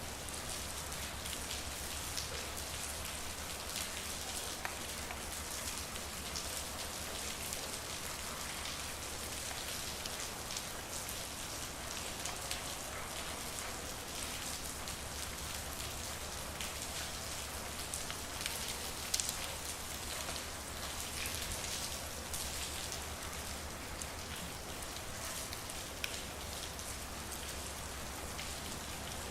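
Steady rain falling in a street, with many separate drops ticking among the even hiss and one slightly louder drop about 19 seconds in. A low steady hum runs underneath.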